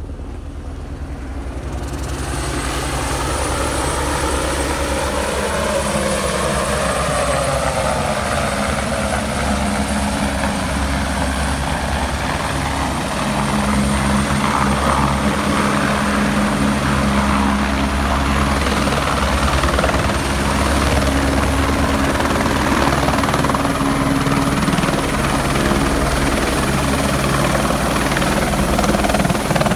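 Helicopter flying in and landing. The rotor and engine noise grows louder over the first few seconds, then holds loud and steady while it hovers and sets down.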